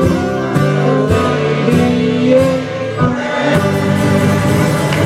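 Live folk band playing with the audience singing along.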